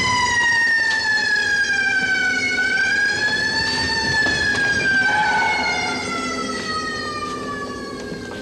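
A siren wailing as a stage sound effect: one long tone that slides slowly down in pitch, swells back up about four seconds in, then falls again and fades a little near the end.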